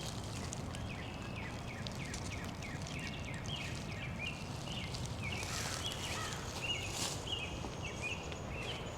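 A chorus of small animals calling: many short, high chirps, several a second at slightly different pitches, over a steady low outdoor background, with a brief hiss about halfway through.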